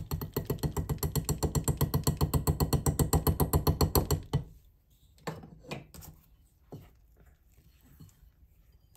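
Metal wire whisk beating fast in a glass mixing bowl, working wet batter into flour: an even rattle of about nine strokes a second that stops after about four seconds. A few light knocks follow.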